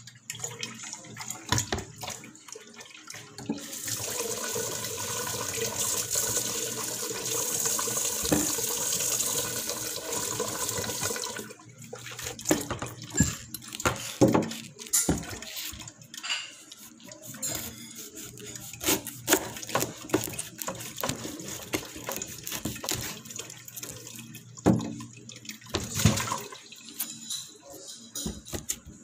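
Kitchen tap water running into a sink over a whole bamboo shoot being rinsed; the steady stream runs from about four seconds in and stops after about eleven seconds. After that come scattered knocks and clicks as the shoot is handled in the sink.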